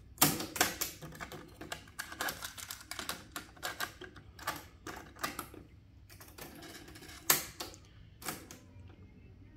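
Ahuja 4040S cassette deck being handled: a sharp click as the stop/eject key is pressed and the door springs open, then a long run of small plastic clicks and rattles as the cassette is taken out, turned over and set back in. A second loud click as the door is snapped shut, and a last click near the end as the piano-key play button goes down.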